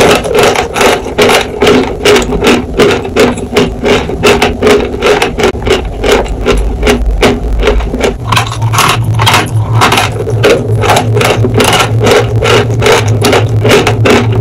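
Close-up mouth sounds of a person chewing dry sawn chalk: a steady run of gritty crunches, about three a second. A low steady hum joins about halfway through.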